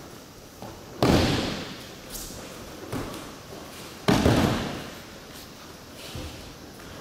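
Two loud thuds of a thrown aikido partner's body and arm slapping the tatami in breakfalls, about a second in and about four seconds in, each trailing off in the large hall's echo. A lighter knock falls between them.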